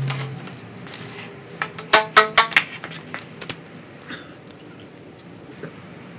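A quick run of about five sharp, ringing clacks about two seconds in, then a few lighter knocks, as PVC pipe fittings and a can of PVC cement are handled.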